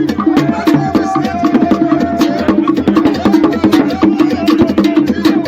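Music with a fast, busy percussion rhythm of sharp wooden clicks over drums, running without a break.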